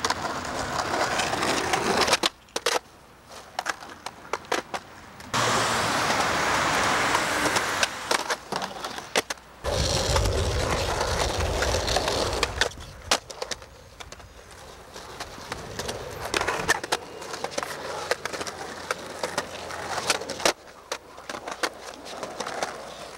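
Skateboard wheels rolling on concrete and pavement in several separate takes, the rolling noise starting and stopping abruptly between them. Sharp clacks come through as the board hits the ground.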